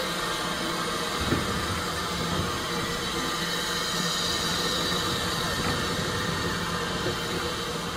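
Diesel railcar's engine running steadily, with a deeper low hum coming in about a second in.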